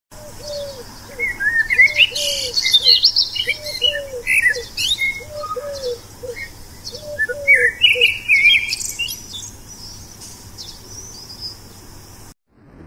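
Birdsong: several birds chirping and twittering in quick high notes, over a lower call repeated in short three-note phrases every second and a half or so. The chirping thins out in the second half, and the sound cuts off abruptly just before the end.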